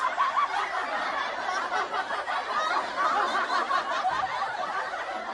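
Canned audience laughter: many people laughing and chuckling together, a laugh track after a joke's punchline.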